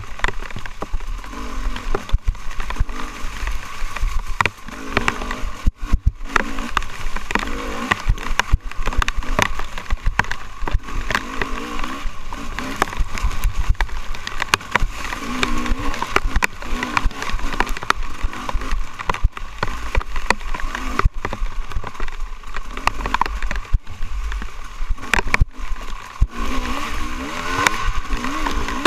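Dirt bike engine revving up and down as it is ridden hard along a rough trail, with frequent knocks and rattles from the bike jolting over the ground.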